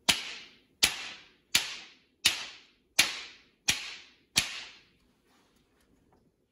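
Two steel spheres struck together seven times through a sheet of paper held between them, about one strike every three quarters of a second. Each strike is a sharp clack with a short ringing decay.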